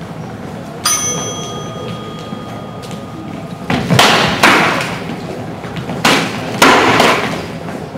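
A bell rings once about a second in, a clear ringing tone that fades over about three seconds, as the bout starts. Then sparring longsword simulators clash in a run of sharp knocks, a cluster around four seconds in and two more between six and seven seconds, these being the loudest sounds.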